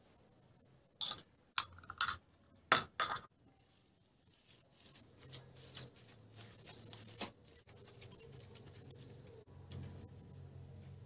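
A metal spoon gives about five sharp clinks in the first three seconds, then a gloved hand squishes and kneads raw ground meat in a stainless steel bowl, a soft, uneven wet sound.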